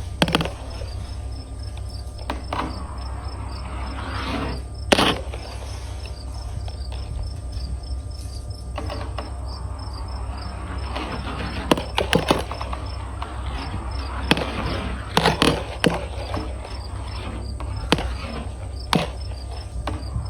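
Marbles rolling along a marble run's plastic slide track with a continuous rumble, broken by sharp clicks and clacks as they knock against the track and each other, over a steady background of chirping insects.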